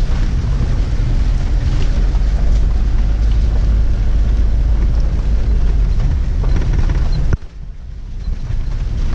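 Car cabin noise while driving through heavy rain: a loud, steady low rumble of the engine and tyres with rain hitting the body and windscreen. About seven seconds in the level drops abruptly and it is quieter after.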